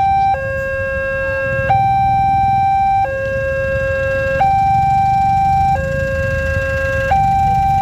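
Railway level-crossing warning alarm sounding a slow two-tone high–low signal, each tone held about a second and a third. The uploader says it sounds much like the newest-generation Wantech alarm. It is the warning that a train is coming and the barriers are down.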